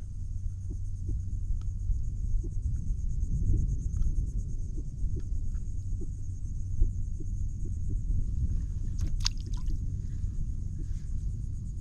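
Low steady rumble of wind on the microphone, with scattered light knocks and clicks from the angler handling a landed trout and his gear in the kayak. A sharper clatter comes about nine seconds in, over a faint steady insect buzz.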